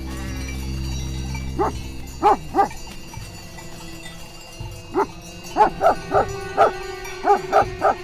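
Maremma sheepdogs barking: three barks about two seconds in, then a quicker run of barks from about five seconds on. This is livestock guardian dogs raising the alarm at approaching danger.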